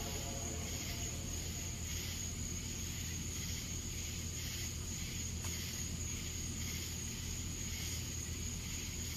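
Insects chirping in a steady pulsing rhythm, about two pulses a second, with a constant high trill over a low background hum.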